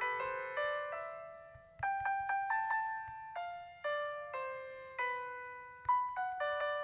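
Background piano music: an unhurried melody of single notes, each struck and then fading.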